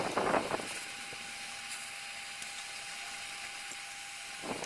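Small gas blowtorch burning with a steady hiss and a faint steady tone. In the first half second there are a couple of short scraping handling noises.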